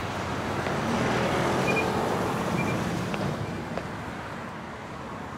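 Urban traffic ambience: a motor vehicle passes, swelling about a second in and fading after about three and a half seconds. A few short high peeps sound near the middle.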